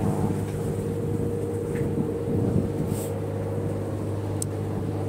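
A steady low engine-like drone holding one pitch, with a couple of faint ticks in the second half.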